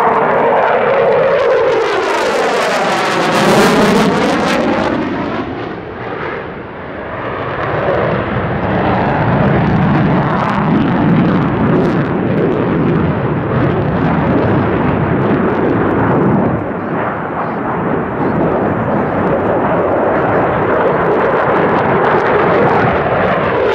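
F-15J Eagle fighter jet flying a display pass overhead, its twin F100 turbofan engines making loud, continuous jet noise. About two to five seconds in, the tone of the roar sweeps down and back up as the jet passes.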